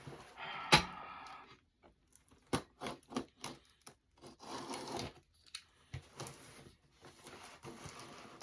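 Packing tape being pulled and torn off a mail package, with scattered sharp clicks and short bouts of ripping and crinkling as the package is handled.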